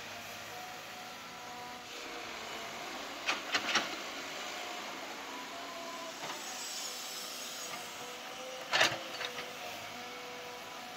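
Caterpillar hydraulic excavator running while digging and loading, its engine and hydraulics giving a steady whine that shifts in pitch as the load changes. A quick run of sharp knocks comes a little after three seconds in, and one loud clank about two seconds before the end.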